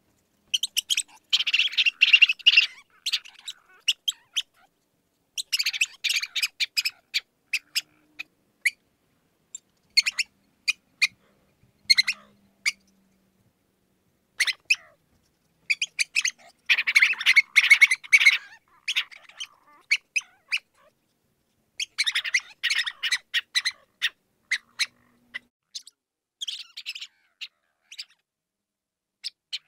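Mouse squeaking: repeated bursts of rapid, high chirping squeaks, each burst a second or two long, with short silent gaps between them.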